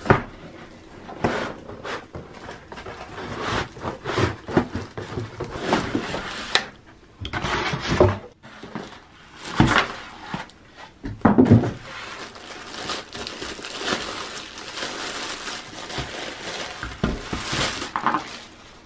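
Plastic wrapping crinkling and cardboard packaging rustling as a small appliance is unboxed, with a couple of louder knocks about halfway through.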